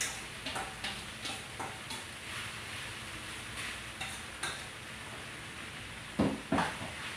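A metal utensil stirring pork sisig in a metal pan, scraping and clinking against it about three times a second at first, over a steady sizzle. About six seconds in come two louder knocks on the metal.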